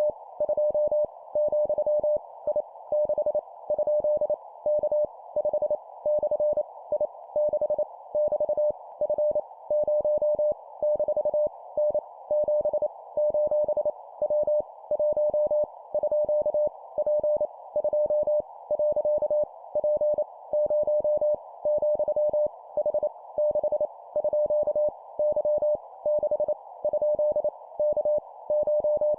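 Morse code tone near 600 Hz keyed at 25 words per minute in short dots and longer dashes, sending random letters, numbers and punctuation, over a faint narrow band of hiss.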